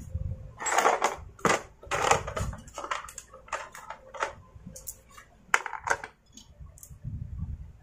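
Hard plastic parts of a Stihl MS250 chainsaw being handled and fitted by hand: an irregular run of clicks, scrapes and crunching rustles, with the loudest clatter in the first half and again near the end as the cover is pressed into place.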